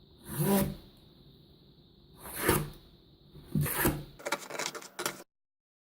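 Cardboard shoebox being cut: three rasping strokes about two seconds apart, then a quick run of clicks, before the sound cuts off abruptly.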